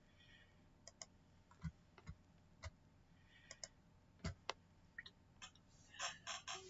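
Computer mouse clicking, about a dozen irregular clicks, some with a soft low thump, and a quicker run of clicks near the end, over quiet room tone.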